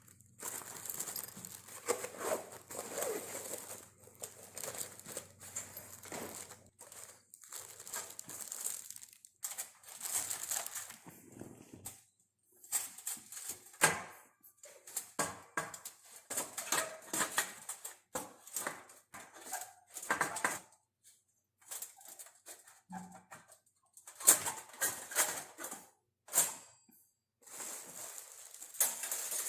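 Plastic packaging crinkling and rustling as a small folding grill set is unwrapped and handled, in irregular bursts with short pauses and sharp clicks of parts being set down.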